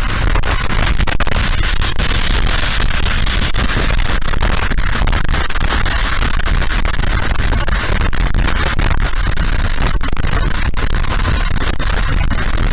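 Steady, loud rush of wind on a motorcycle rider's camera microphone at speed, with a low road rumble underneath and many small ticks scattered through it.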